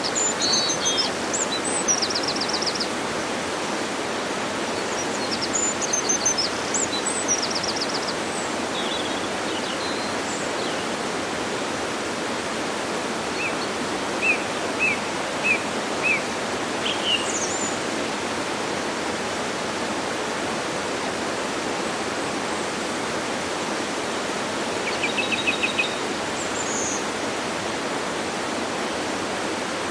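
Steady rushing of a waterfall, with birds calling over it: high trills near the start and again near the end, and a run of five short notes in the middle.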